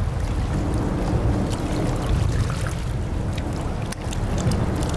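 Boat motor running steadily at low speed, with scattered faint ticks.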